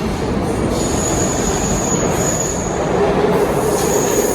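Subway train pulling into the station: a steady loud rumble, with a thin high-pitched squeal rising over it twice.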